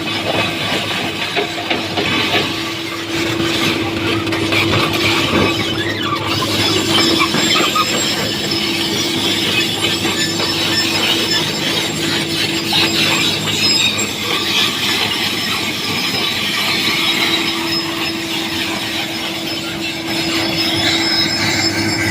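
Komatsu PC210 hydraulic excavator running: a steady engine drone with a constant whine over a harsh, rattling mechanical noise. The whine drops away for a few seconds midway, then returns.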